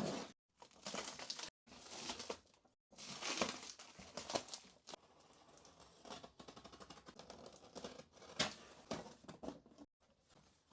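Packaging of a large cardboard parcel crinkling and rustling as it is unpacked, with some tearing, in short irregular stretches that break off abruptly.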